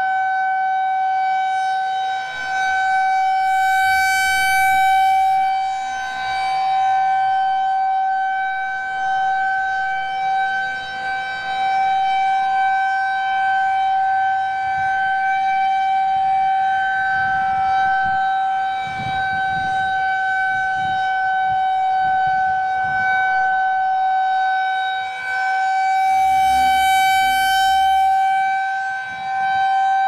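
Federal Signal 2001-130 rotating warning siren sounding a steady tone at a level pitch. The sound swells and fades as the horn turns toward and away, loudest and brightest about four seconds in and again near the end.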